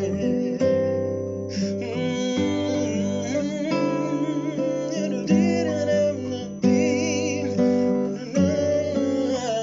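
Classical nylon-string guitar playing a chord accompaniment with no lead vocal, a fresh chord struck and left ringing every second or two.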